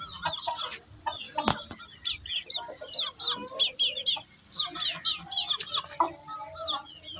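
A group of young Aseel chickens peeping and clucking: many short, high, falling chirps, several a second, with some lower call notes among them. A single sharp click sounds about a second and a half in.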